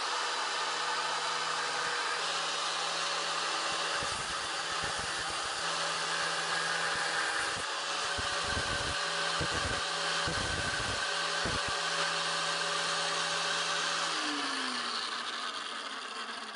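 Angle grinder cutting off the tail tip of a conch shell: a steady motor whine under a harsh grinding hiss, with uneven low rumbling in the middle. Near the end it is switched off and its pitch falls as it winds down.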